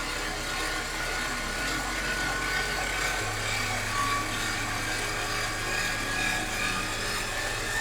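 King Canada 7x12 mini lathe running at high speed, its motor and spindle giving a steady whine over a low hum. The hum shifts about three seconds in and the whine creeps up in pitch near the end as the speed is brought up to maximum.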